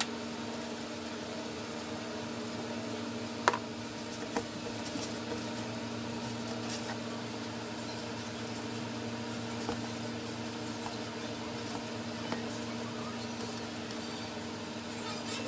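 A steady machine hum holding several fixed pitches, with a sharp click about three and a half seconds in and a few lighter taps.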